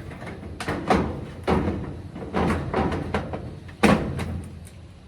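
A run of sharp metallic knocks and clanks, about six irregular hits with a short ringing tail, the loudest about four seconds in, as the dryer's sheet-metal cabinet panels are knocked into place during reassembly.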